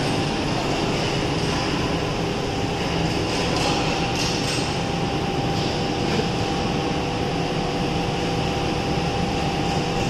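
PUR laminating line for honeycomb doors running: a steady mechanical drone from its conveyor and roller drives, with thin steady whines above it.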